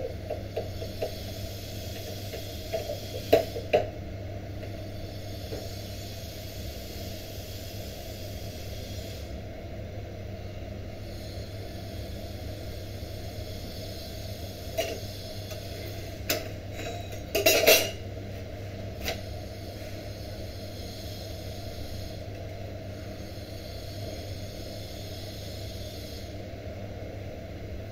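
Light knocks in the first few seconds, then a short clatter of metal kitchen utensils a little past halfway, over a steady low hum.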